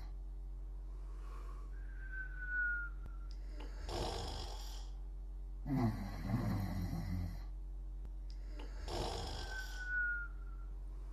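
Slow, rhythmic snoring of sleepers, breaths about six seconds apart: a rattling snore on one in-breath, breathy rushes between, and twice a short high whistle that falls slightly in pitch, under a steady low hum.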